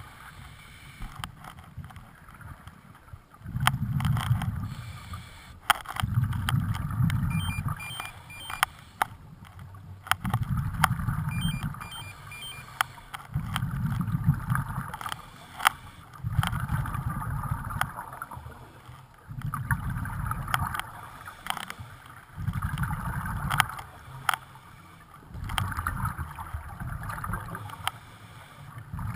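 Scuba diver breathing through a regulator: a low bubbling rush of exhaled air comes about every three seconds, with a softer hiss of inhaling between them and a few light ticks.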